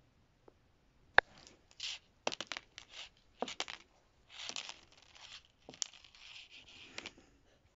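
Small toy figurine handled and scraped across a black sheet: a sharp click about a second in, then a run of scratchy rustles and taps that stops near the end.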